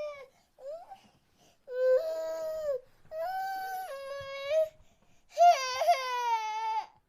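High-pitched baby-like crying sound effect: a string of drawn-out wailing cries with short breaks between them, the last cry sliding down in pitch.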